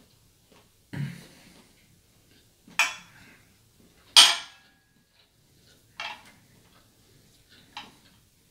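A metal fork clinking and scraping against a serving platter several times, with the loudest clink about four seconds in ringing briefly.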